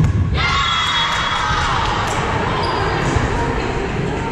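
A volleyball hits the hardwood gym floor at the end of a rally, and players and spectators break into high shouting and cheering that carries on in the echoing hall.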